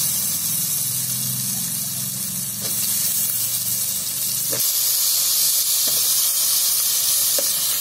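Masala sizzling in oil in a kadhai as raw potato pieces are dropped in, with a few soft knocks. The hiss grows louder about halfway through. A low hum underneath cuts off at about the same moment.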